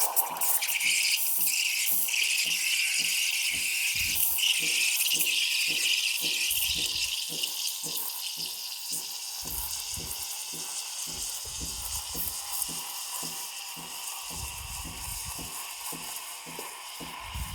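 Espresso machine steam wand hissing as it steams milk, with a low pulsing about three times a second beneath it. The hiss is loudest for the first six or seven seconds, then softens and lowers.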